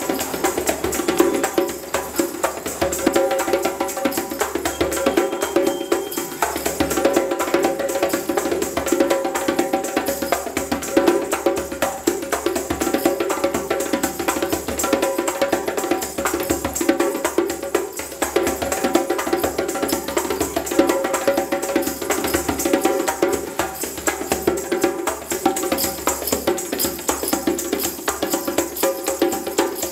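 Djembe played by hand in a fast, continuous rhythm, with jingle bells strapped to the player's shoe jingling along with the beat.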